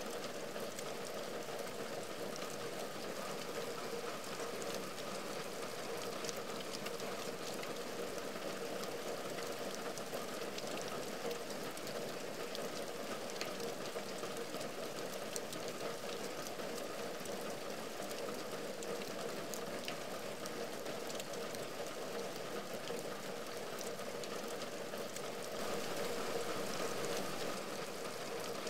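Steady rain falling on a window and its wet wooden sill, a constant hiss dotted with many small drop ticks, a little louder near the end.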